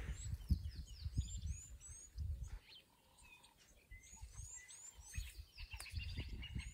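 Wild birds chirping: a short, high, falling call repeated many times, with other calls alongside. Underneath and louder are irregular low thuds and rumbles, heavy at the start and again near the end.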